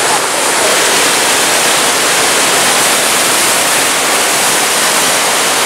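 Steady rushing of a fast-flowing creek, an even hiss of moving water with no breaks.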